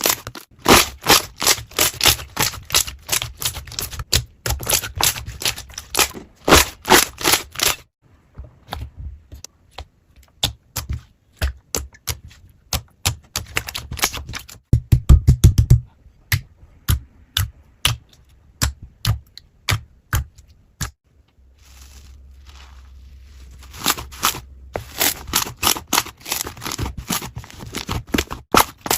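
Slime being squeezed and poked by hand, giving rapid crisp clicks and pops in bursts, with a short run of heavier thuds about halfway through.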